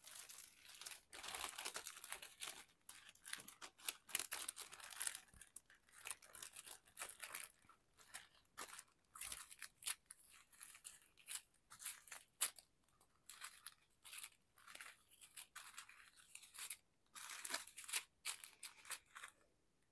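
Small plastic zip-lock bags of diamond painting drills being picked up and shuffled together, giving an irregular crinkling and rustling of thin plastic with short pauses between handfuls.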